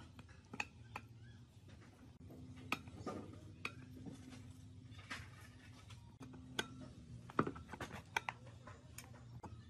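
Scattered metal clinks and knocks of tools and engine parts as a motorcycle engine's crankcase is worked apart with a T-handle socket wrench. The loudest knock comes about two-thirds of the way through, followed by a quick run of clinks.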